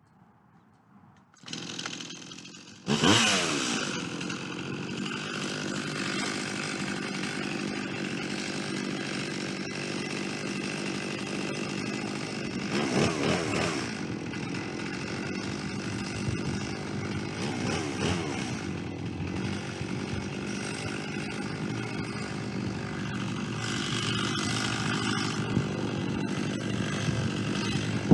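A chainsaw on a chainsaw mill, running at low speed, then opened up to full throttle about three seconds in. It runs steadily under load while milling a white pine log, with a few brief surges in engine speed.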